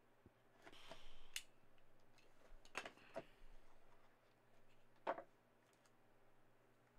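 Faint handling noises of a sealed trading-card box being slit open and a card being taken out: a soft rustle and click about a second in, then a few more clicks and rustles spaced a second or two apart.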